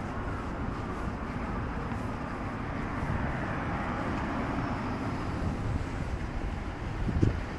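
Road traffic on a city street: a steady rush of car tyres and engines going by, swelling a little in the middle. A few low bumps of wind on the microphone near the end.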